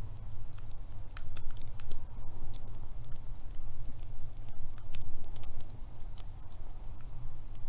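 Lock pick and tension wrench working the pin tumblers of a Master Lock Pro Series 7050 padlock: irregular small metallic clicks and scrapes, over a steady low hum.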